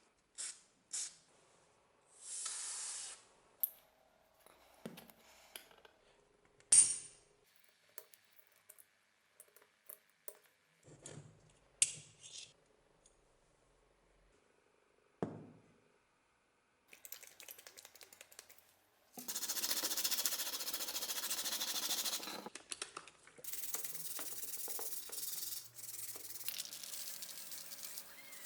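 Work on the small metal parts of an old powder-actuated tool: scattered clicks, knocks and short scrapes, then about halfway through a steady hiss lasting some three seconds, a brief break, and more hiss.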